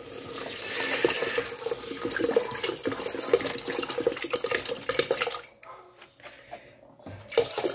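Milk pouring from a carton into an aluminium pot of cooked rice: a splashing liquid stream that stops about five seconds in, followed by a couple of faint knocks near the end.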